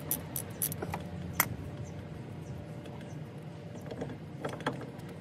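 Small metallic clicks and clinks of a wrench and bolt being worked at a car's brake caliper as the brake line bolt is removed. There are several in the first second and a half, then a short cluster near the end.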